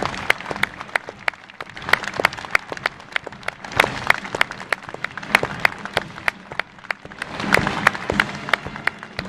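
Crowd applauding, with one person close by clapping sharply, about three claps a second.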